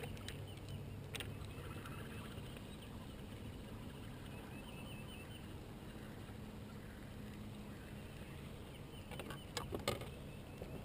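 Quiet, steady sound of a small boat sitting on calm lake water, with a low steady hum under it. There are a few light knocks near the end.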